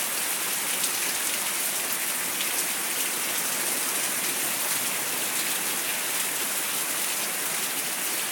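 Rain pouring down steadily, with many small drop impacts close by.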